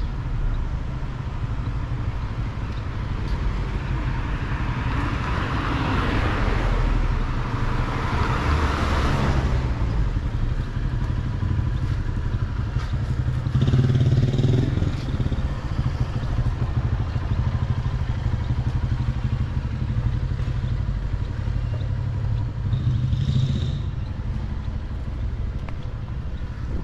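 Street traffic: motor vehicles passing over a steady low rumble, one swelling and fading about six to nine seconds in and an engine heard loudest about fourteen seconds in.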